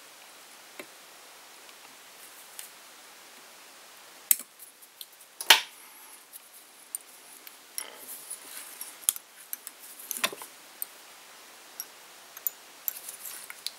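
Scattered small clicks and ticks of hands working fly-tying tools and materials at the vise, the sharpest about five and a half seconds in, over a faint room hiss.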